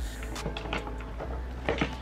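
A few light clicks and knocks of small objects being handled at a desk, a couple of them close together near the end, over a steady low hum.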